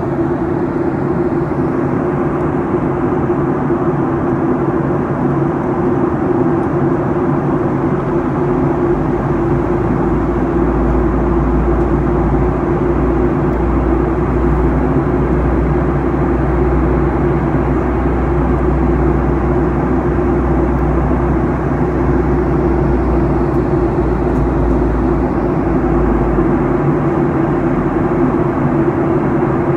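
Cabin noise of a Boeing 737-800 airliner: its CFM56 engines running and the air rushing past the fuselage as a loud, steady drone with a low hum. A deep rumble comes in about a third of the way through and fades out near the end.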